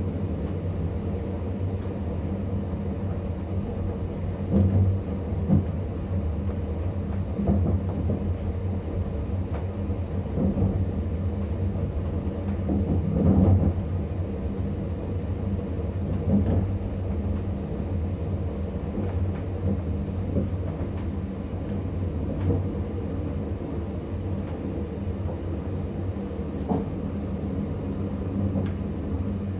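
ČD class 640 RegioPanter electric multiple unit running, heard from its cab: a steady low hum and rumble of the moving train, with short knocks from the wheels over the track every few seconds.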